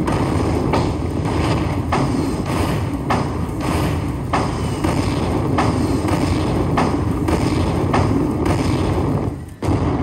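Buffalo Link slot machine's bonus tally sound as it collects its prize symbols and counts up the win: a steady beat of thuds, a little under two a second, over a constant low rumble. It drops out briefly near the end.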